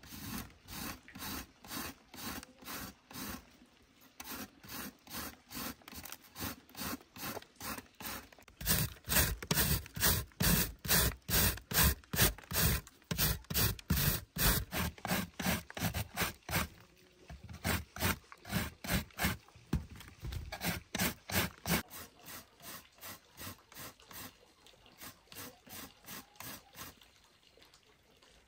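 Rhythmic scraping strokes, about three a second, loudest in the middle with a short pause partway through, then growing fainter toward the end.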